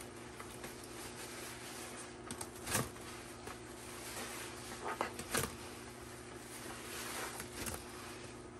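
Sudsy yellow sponge squeezed and squished by rubber-gloved hands, wet squelching with foam and liquid dripping into a plastic tub, with louder squelches about a third of the way in and again past halfway.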